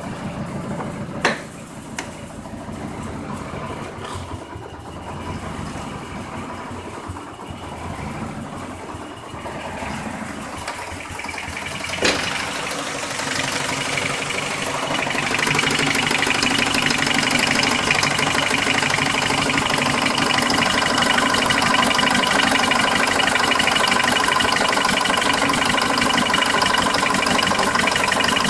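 Car engine idling with a ticking noise that the owner places somewhere around the oil pan and hears from start-up until shut-off. Sharp clicks sound about a second in and about twelve seconds in, and the engine sound grows louder and fuller a few seconds later.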